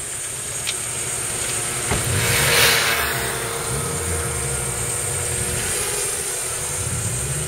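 Idling engines of a parked Honda CRX and Honda Civic, a steady low rumble while they warm up. About two to three seconds in, a brief rushing noise swells and fades.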